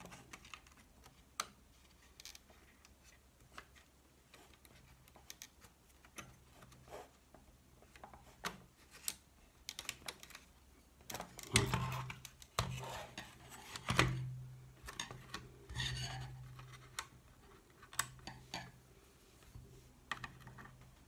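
Small, irregular plastic clicks, taps and scrapes as a screwdriver tip pries at the clips and parts of a car instrument cluster, with a few louder handling knocks about twelve and fourteen seconds in, over a faint low hum.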